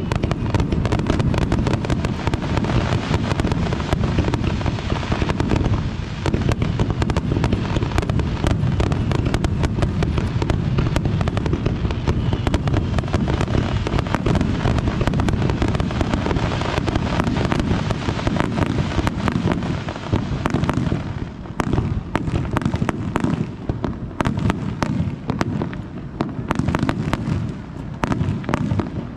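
Fireworks display: a dense, continuous barrage of shell bursts and crackling that thins after about 21 seconds into separate sharp cracks.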